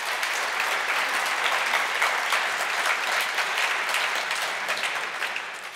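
Audience applauding, many hands clapping in a dense patter that fades out near the end.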